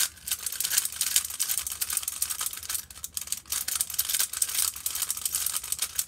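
A plastic Rubik's cube being turned at speed during a timed solve: a dense stream of quick clicks and rattles as the layers snap round, with a brief lull about three seconds in.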